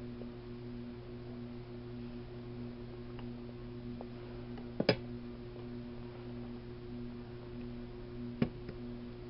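Steady low hum, with a quick double click or knock about five seconds in and another single click near the end.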